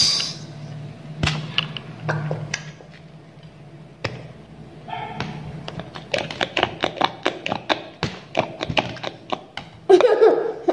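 Aari hook needle tapping and punching through cloth stretched tight on an embroidery frame while beads are stitched on: scattered clicks at first, then a quick run of about five clicks a second. A brief, louder vocal sound comes near the end.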